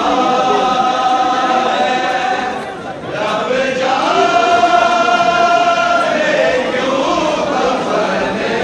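Large crowd of men chanting a mourning chant in unison, in long drawn-out phrases: one held phrase, a brief break about three seconds in, then a second long held phrase before the chanting becomes more uneven.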